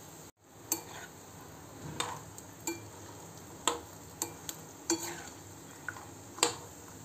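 Peanuts frying in oil in a metal kadhai with a steady low sizzle, while a perforated metal spoon stirs them, clicking and scraping against the pan about ten times.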